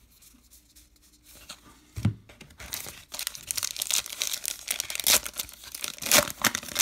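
A baseball card pack's wrapper being torn open and crinkled by hand, starting with a soft thump about two seconds in and followed by dense crackling.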